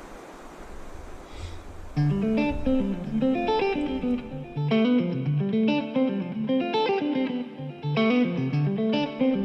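A soft rushing noise with a low rumble, then about two seconds in a clean electric guitar starts an arpeggiated figure, its notes repeated by delay echoes.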